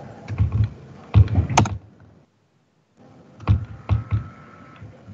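Computer keyboard keys and mouse buttons clicking in three short runs, close to the microphone. The sound cuts out completely for under a second in the middle.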